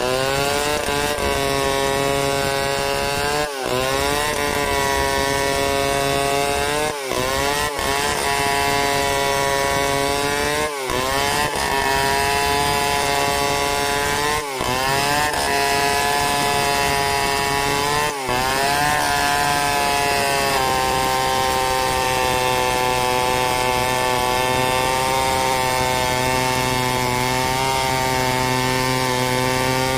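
Two-stroke chainsaw at high revs ripping lengthwise through a wooden slab. Its pitch dips briefly and climbs back about every 3 to 4 seconds through the first two-thirds, then holds steady under the cut.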